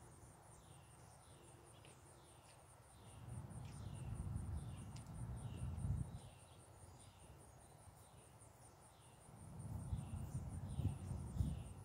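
Insects trilling outdoors: a steady, rapid, high pulsing with a short falling chirp repeated about twice a second. Two low rumbles swell and fade, one about three seconds in and one near the end, and these are the loudest sounds.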